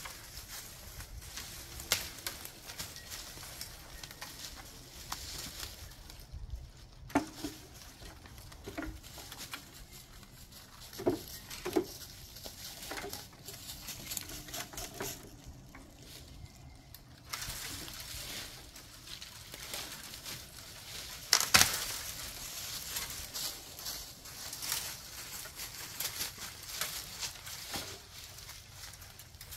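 Dry tree limbs being dragged through dead leaves and piled onto wooden pallets, the branches crackling and snapping, with footsteps rustling through the dry leaf litter. A sharp crack about two-thirds of the way through is the loudest sound.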